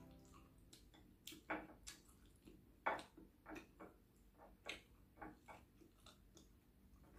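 Faint sounds of a person chewing and eating with her fingers: irregular soft clicks and smacks, the loudest about three seconds in.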